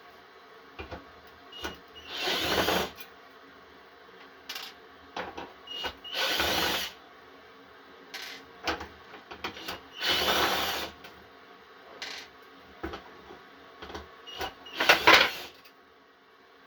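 A small power tool running in four short bursts of about a second each, with small clicks and handling noises between them.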